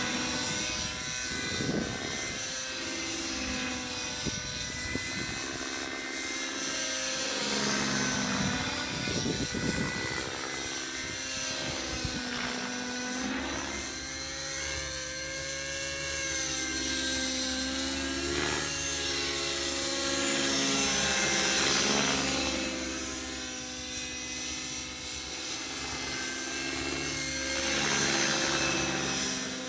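Align T-Rex 600N DFC nitro RC helicopter in aerobatic flight: its glow engine and rotor blades run without a break, the pitch sliding up and down again and again as it swoops and turns. It grows louder as it passes close about two-thirds of the way through and again near the end.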